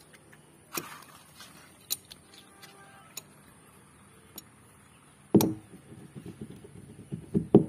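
A metal adjustable wrench clicking and knocking on the threaded PVC outlet fitting at the base of a plastic water tank as the fitting is worked loose: a few light clicks, then a loud knock about five seconds in and a run of knocks up to a louder cluster near the end. The thread is stuck from water always standing in it.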